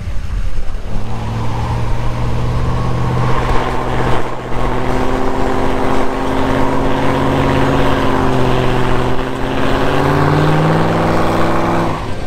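Pickup truck engine held at steady revs for about ten seconds during a burnout, with a noisy hiss of spinning tyres over it. It cuts off suddenly near the end.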